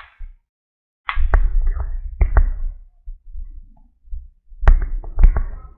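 Handling noise: sharp clicks and knocks with low rumbling, in two clusters, about a second in and again near the end.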